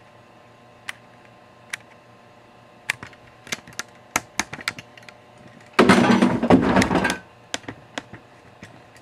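Handling noise at a workbench: scattered light clicks and knocks, then a dense clatter lasting about a second and a half near the middle, then a few more clicks.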